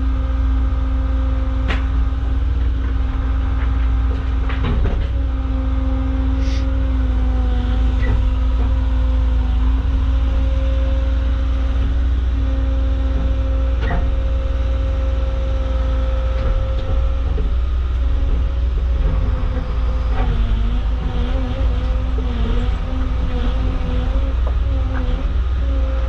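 Caterpillar excavator running while it works, a steady engine hum with a held tone that dips and wavers in pitch in the second half. A few sharp knocks come through over it.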